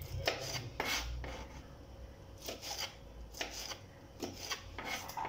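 Kitchen knife slicing bird's eye chilies on a plastic cutting board: about a dozen short, irregular cutting strokes, each a quick tap and scrape of the blade on the board.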